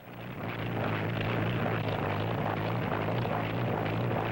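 Propeller airplane's piston engine running steadily: a low droning hum over rough engine and propeller noise. It cuts in abruptly and swells to full level within about a second.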